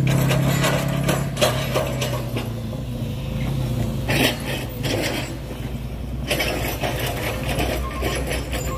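Empty logging truck's diesel engine running as the truck moves off, its low hum strong at first and fading after a couple of seconds. A few sharp clatters and knocks are heard in the second half.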